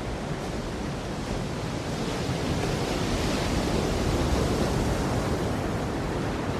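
Sea waves washing, a steady rush that swells toward the middle and eases again.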